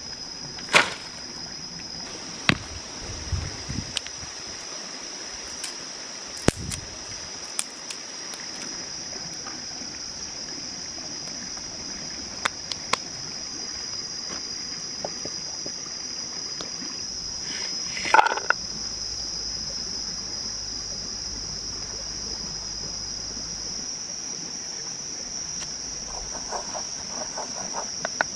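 Steady high-pitched buzzing of forest insects, with scattered sharp clicks and knocks and a louder clatter about two-thirds of the way through.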